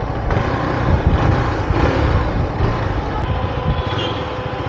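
KTM Duke 390 single-cylinder engine running at low revs as the motorcycle slows to walking pace through traffic, heard from the rider's position.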